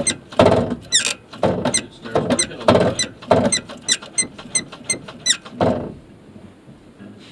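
Clutch pedal and hydraulic linkage of a 2001 Hyundai Accent squeaking with each stroke as the pedal is pumped rapidly, about two strokes a second, stopping about six seconds in. The rapid pumping is a test of a failing clutch master cylinder whose seals are deteriorating.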